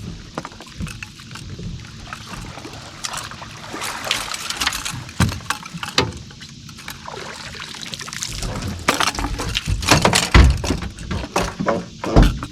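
Water splashing and irregular knocks as a hooked catfish is brought to the boat and landed, louder and busier in the last few seconds.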